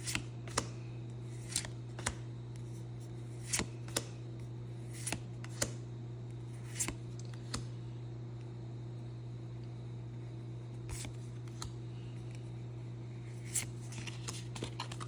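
Pokémon trading cards being handled and flipped through by hand, giving scattered irregular clicks and snaps, over a steady low hum.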